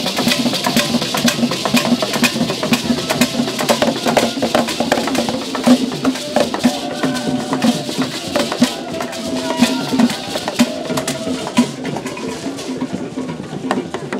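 Ensemble of traditional Ghanaian barrel-shaped hand drums beaten in a fast, dense rhythm.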